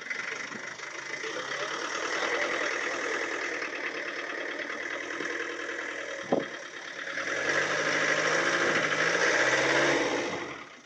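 A 4x4's engine running under load as the vehicle pulls on a rope-and-pole scout structure, with a single sharp knock about six seconds in. The engine grows louder with a rising note from about seven seconds in, then drops away just before the end.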